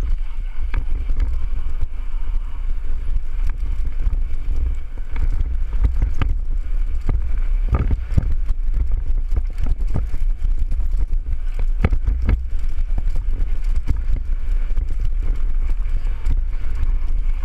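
Mountain bike descending a dirt trail: a steady low rumble of wind buffeting the helmet-camera microphone, with the bike rattling and sharp knocks as it hits bumps, the loudest about eight and twelve seconds in.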